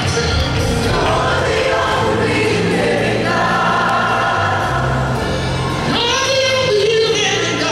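Live gospel music: a choir singing sustained notes over a band with steady bass notes, picked up from the arena seats.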